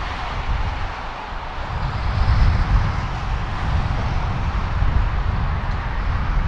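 Jet engines of a Boeing 777-200ER (GE90 turbofans) rumbling as the airliner rolls out on the runway after landing. A deep rumble swells and grows louder about two seconds in.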